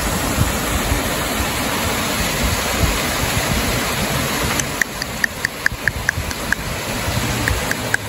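Steady rushing noise. About halfway through, a run of short, high ticks or chirps sets in at about five a second, with a few more near the end.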